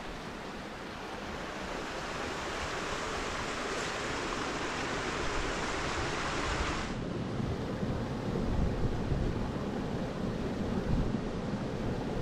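Steady outdoor rushing noise, a hiss that cuts off abruptly about seven seconds in, leaving low gusty wind buffeting the microphone.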